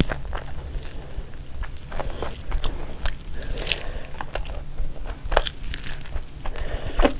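A person biting into and chewing a chicken wrap, with wet mouth smacks and soft crunches at irregular moments.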